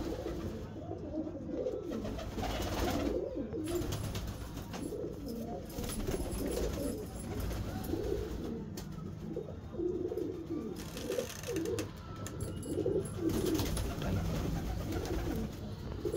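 Domestic Satinette fancy pigeons cooing, many birds overlapping in short low coos throughout.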